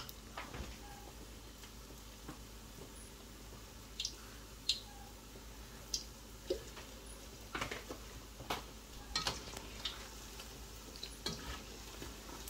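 Pholourie batter frying in a large pot of hot oil: a faint steady sizzle, with scattered light clicks and taps as pieces of batter go in and a spatula stirs against the pot.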